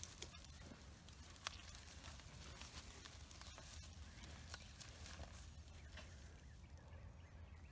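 Faint sounds of cattle grazing and shifting on their feet in grass: scattered soft clicks and rustles of grass being cropped and hooves moving.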